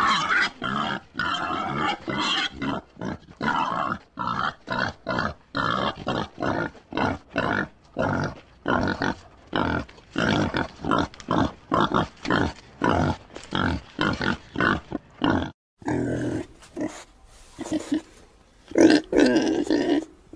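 Pigs grunting and squealing in a rapid series of short calls, about two or three a second. The calls break off, and a second recording follows with louder, longer squeals near the end.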